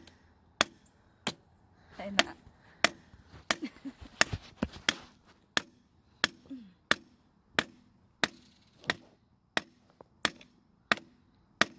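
A hammer striking the top of an 8-foot copper grounding rod again and again, sharp metal-on-metal strikes at a steady pace of about one and a half a second, driving the rod down into the ground.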